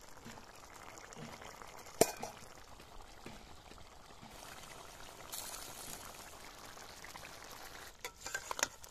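Chicken curry bubbling at a boil in a steel kadai, with one sharp knock about two seconds in. Near the end a metal spatula stirring and scraping the pan gives a few quick clicks.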